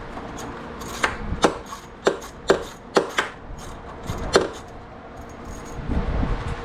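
Hand tools and small metal hardware clinking during work on the vehicle's ground-wire bolts: about seven sharp, irregularly spaced clicks, the last about four and a half seconds in, followed by a low rumble of handling.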